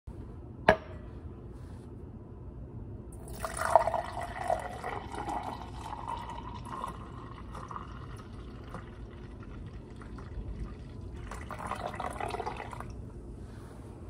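A glass set down on a stone countertop with one sharp clink, then juice poured from a bottle into a tall drinking glass, the filling sound rising in pitch as the glass fills. A second short pour comes near the end.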